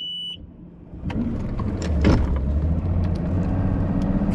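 A short, high electronic beep, then a bass boat's outboard motor starts about a second in and runs steadily.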